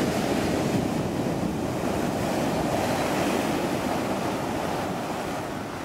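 Steady wash of surf with wind buffeting the microphone, fading out near the end.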